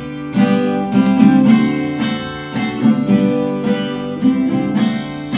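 Closing music: a strummed acoustic guitar playing chords, about two strums a second.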